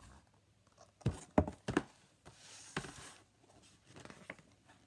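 Picture book being handled: several sharp knocks and taps as it is held up and brought down, with a papery rustle of a page turning a little over two seconds in.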